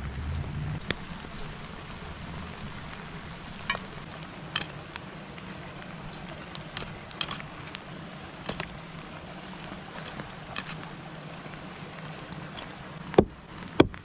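Steady rush of running river water with scattered light clicks and taps, then two sharp axe blows into a log, about half a second apart, near the end.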